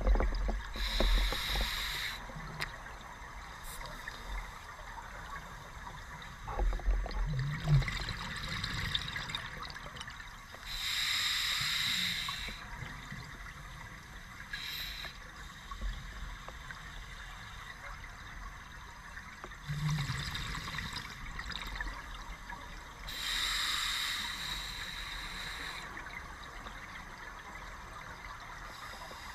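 Scuba diver breathing underwater on a regulator: three bursts of exhaled bubbles rushing past, about eleven seconds apart and each lasting about two seconds, with a short fourth burst in between and faint low sounds between breaths.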